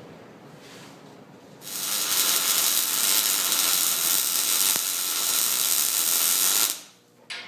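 MIG welder arc crackling steadily for about five seconds, starting and stopping abruptly as a weld is run on steel, followed by a short click.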